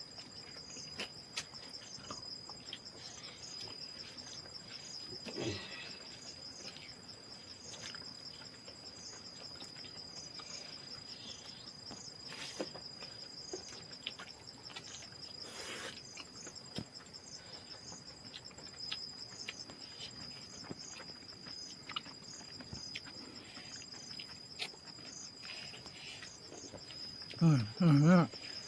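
Steady chorus of crickets and other insects, a constant high trill with pulsing above it, with scattered small clicks. Near the end comes a brief, louder call whose pitch wavers up and down.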